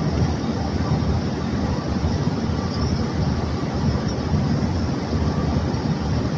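Steady, loud low rumble of a barge being unloaded: a heap of crushed coal sliding and pouring down out of the hold.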